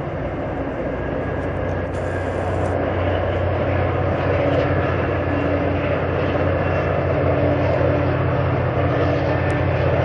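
MBTA commuter rail train passing: the diesel locomotive's engine hum and the coaches rolling on the rails make a steady rumble that slowly grows louder.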